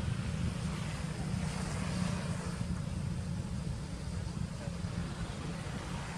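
Wind rumbling on the microphone outdoors: a steady low rumble with a faint even hiss above it.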